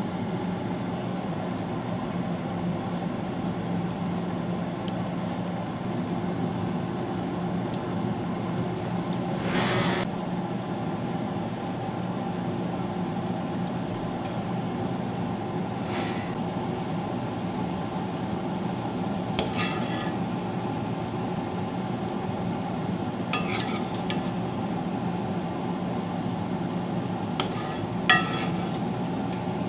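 A steady mechanical hum under several light metallic clinks of a utensil against a cooking pot, with one brief swish about a third of the way in and the sharpest clinks near the end.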